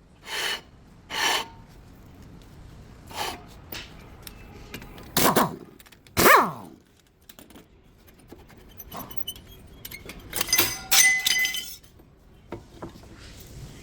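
Metal parts and tools clanking and clinking during front brake work on a Hyundai Sonata: a handful of separate knocks, some ringing briefly, then a quick run of jangling metallic clinks about ten seconds in.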